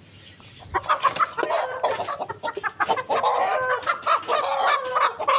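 Aseel chickens clucking, a busy run of short calls starting about a second in.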